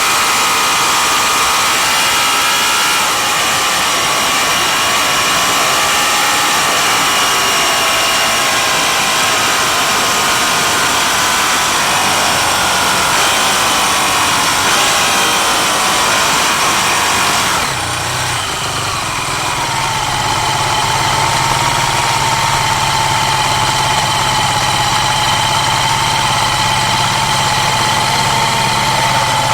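Racing motorcycle engine rising and falling in pitch as it is ridden for about the first 18 seconds. It then changes suddenly to a steady, even engine note.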